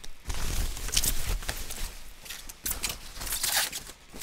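Crinkling and rustling of a large white plastic protective bag being pulled off a bass guitar and handled, in irregular strokes with some dull low bumps in the first second or so.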